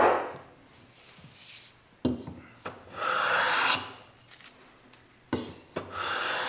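Paulownia wood being handled: a sharp knock at the start, further knocks about two and five seconds in, and two rasping strokes of wood scraping or rubbing, about a second long each.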